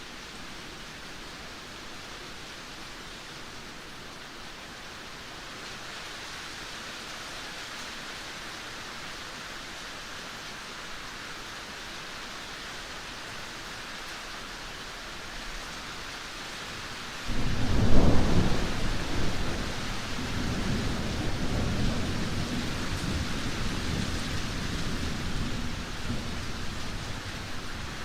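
Steady rain hissing, then about two-thirds of the way through a sudden loud thunderclap that rolls on as a long low rumble and eases off near the end.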